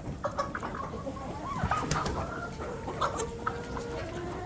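Chickens clucking in short, overlapping calls while feeding on cracked corn, with a longer held note near the end.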